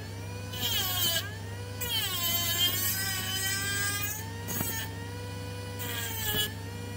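Homemade mini grinder, a small RS-365 DC motor in a PVC pipe body driving an abrasive disc, whining as it grinds the edge of a steel saw blade, with a gritty hiss of metal being ground. The whine sags in pitch and recovers several times as the blade is pressed onto the disc and eased off.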